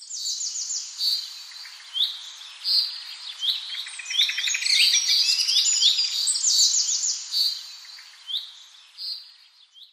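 Small songbirds singing and calling: quick runs of high whistled notes that fall in short trills, mixed with repeated short rising chirps.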